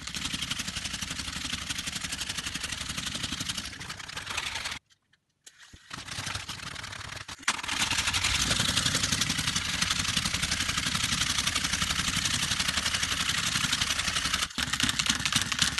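Chubby Puppies Dalmatian toy's small battery motor and plastic gears whirring with a fast, steady clatter as it waddles along. The sound cuts out for about a second around five seconds in, comes back, and gets louder from about seven and a half seconds.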